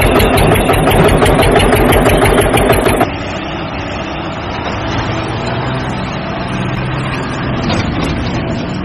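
Tractor engine running with a fast, loud rhythmic chug. About three seconds in it cuts abruptly to a quieter, steadier engine drone.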